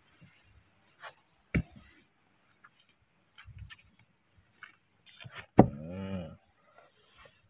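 Faint clicks and smacks of a baby monkey suckling milk from a plastic feeding bottle, with a sharp knock about three-quarters of the way through followed by a man's short, low hum that rises and falls.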